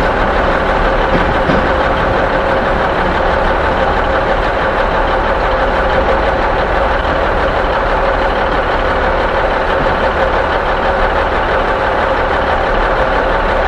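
Heavy diesel engine running steadily, a constant low rumble with a steady hum.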